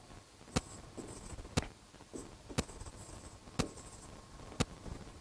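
A steady tick, one sharp click each second, over faint room tone, with faint scratching noises between the ticks.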